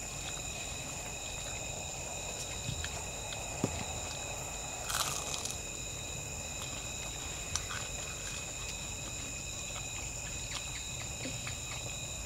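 Steady high-pitched chorus of night insects, with soft eating sounds from people eating fried chicken tenders and rice by hand: faint clicks and crunches, and a brief louder rustle about five seconds in.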